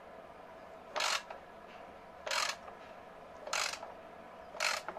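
Ratchet wrench clicking in four short bursts about a second apart: the return strokes of short pulls on a stiff turbo fitting that doesn't turn freely.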